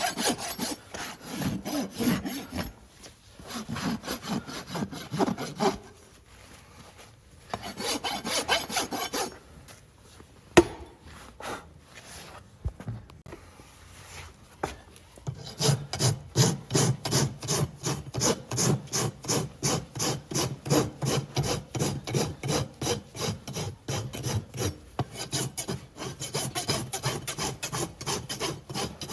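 Hoof rasp filing a horse's hoof, rough scraping strokes in short bouts at first, then a steady run of even back-and-forth strokes from about halfway. A single sharp knock comes about ten seconds in.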